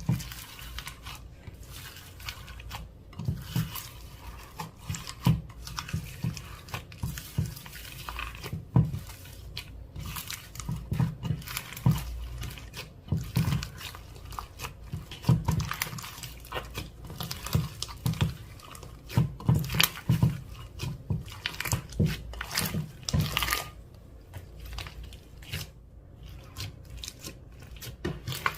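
Clear slime being worked and mixed by hand, making irregular sticky crackles, pops and squelches.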